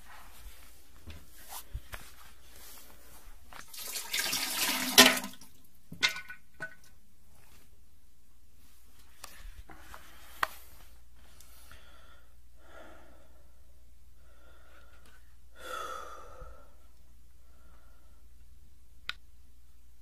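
Diarrhea sound effect: a loud splattering burst into a toilet bowl about four seconds in, then scattered drips and plops, and a softer splatter about sixteen seconds in.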